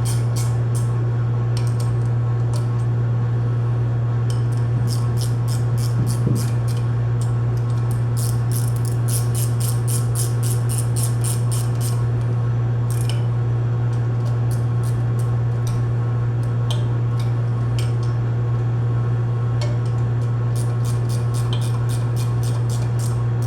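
Socket ratchet clicking in quick runs, stopping and starting, as the bolts holding the pump to its volute are tightened in a star pattern. A steady low hum runs underneath throughout.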